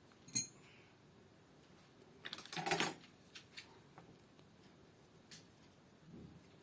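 A sharp click, then a brief clatter of hard objects knocking together about two and a half seconds in, with a few faint ticks in between: small hard parts or hand tools being handled.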